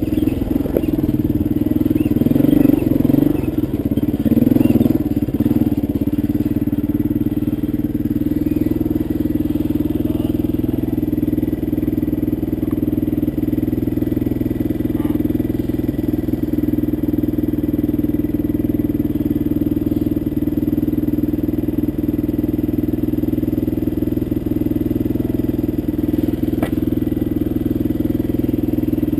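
Honda dirt bike engine idling close up, uneven with small rises for the first few seconds, then running at a steady idle.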